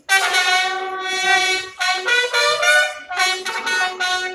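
Military marching band wind instruments playing loud held notes, stepping from pitch to pitch with two short breaks between phrases.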